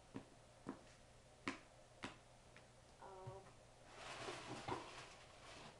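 Hands handling gear: a few scattered light clicks and taps, then rustling as items are rummaged in a cardboard box about four seconds in.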